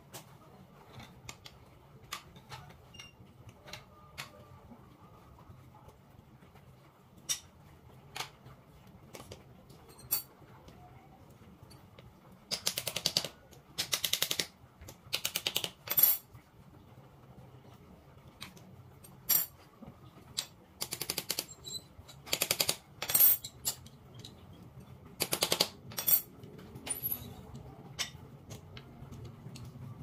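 Wooden bird cage bars and frame pieces knocking and clattering against a hard floor and each other as they are handled: scattered light clicks, with several short bursts of rapid clatter in the middle and later part.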